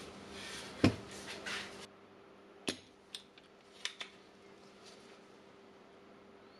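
Gloved hands handling the plastic housing of a Milwaukee M18 battery pack: rustling with one sharp plastic knock about a second in, then several light clicks and taps as a soldering iron and desoldering pump are brought to its circuit board.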